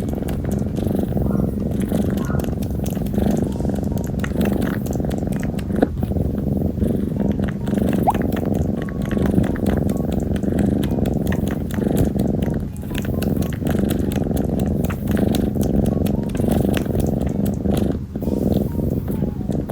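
A three-month-old kitten purring steadily and loudly, a continuous low rumble with a fast pulsing flutter: the contented purr of a kitten being affectionate.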